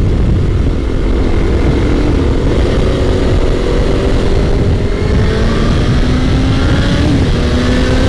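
Sport motorcycle engine running under way, its pitch climbing slowly as it accelerates and dipping briefly about seven seconds in before climbing again, over heavy wind rumble on the microphone.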